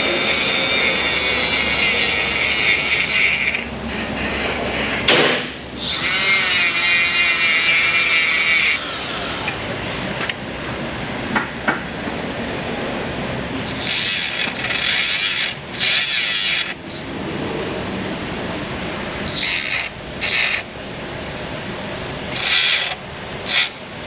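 A small power tool spinning up in repeated bursts with a high whine, used to clean starter cable connections. The two longest bursts come in the first nine seconds, then several shorter ones, with handling rattles between them.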